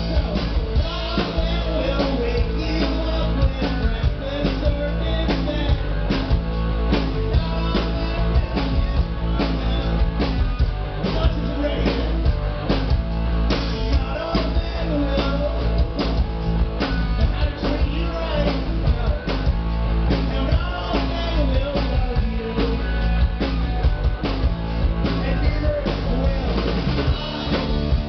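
Rock band playing live: drum kit and guitar with a fast, steady beat.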